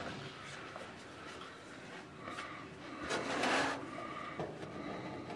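Faint handling sounds on the sheet-metal wing skin: a few light taps and scrapes as a solid rivet is pushed into its hole ready for bucking.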